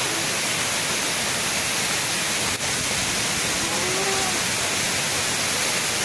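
Steady rushing of a cascading waterfall, water pouring down many tiers of rock ledges.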